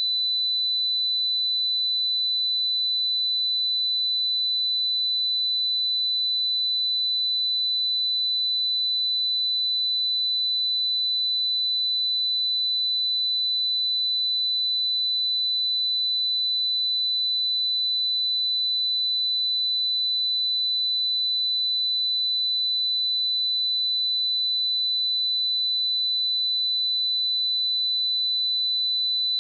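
Pure 3995 Hz sine-wave test tone, a single steady high-pitched whistle-like note held at constant level without change.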